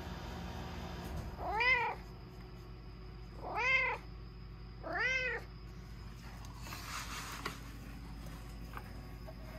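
A tabby-and-white domestic cat meowing three times, about a second and a half apart, each meow rising and then falling in pitch. A brief rustle follows a couple of seconds later.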